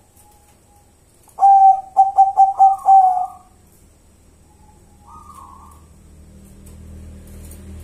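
Zebra dove (perkutut) cooing: a quick run of about six short notes at one pitch, starting about a second and a half in and lasting nearly two seconds.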